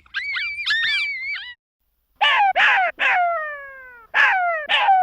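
Jackal calling: a quick run of high, arching yips for the first second and a half, then, after a short pause, loud falling wails in two groups of three.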